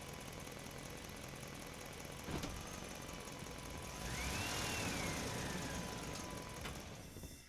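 Vehicle driving through a parking structure, its engine running steadily. There is a sharp knock a little over two seconds in. From about four seconds in the noise grows louder, with a high squeal that rises and then slides down in pitch, before the sound fades out near the end.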